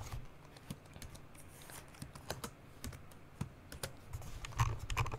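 Computer keyboard keys being typed in short, irregular keystrokes, with a quicker, louder run of keys near the end.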